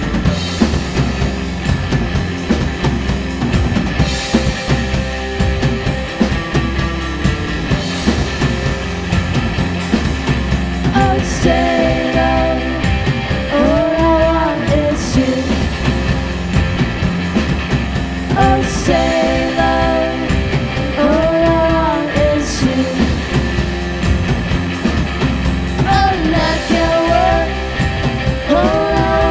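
Rock band playing with a drum kit. About eleven seconds in, singing comes in, in long drawn-out phrases that return every few seconds.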